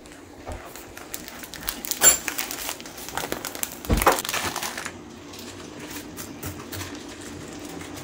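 A plastic spaghetti packet crinkling and rustling as dry spaghetti is tipped into a steel pot of boiling water, with two sharper knocks, about two and four seconds in. After that, a steady, quieter bubbling of the pot.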